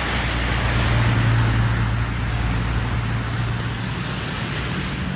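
Heavy dump truck passing on a wet road: a low engine drone over the hiss of tyres on water, loudest about a second in and fading after a few seconds.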